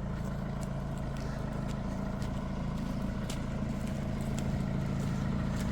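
Steady low hum of an engine running, with a few faint clicks.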